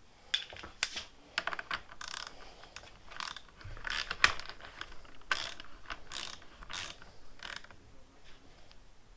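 Small metal parts and a hand tool clicking and rattling in irregular short bursts as a handguard and bar-end are fitted back onto a motorcycle handlebar, loudest about four seconds in.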